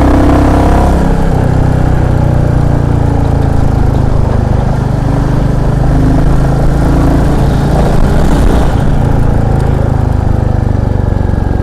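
Royal Enfield Classic 350's single-cylinder engine running steadily while riding. The tappets have just been adjusted, and the engine runs smoothly without its earlier tik-tik ticking.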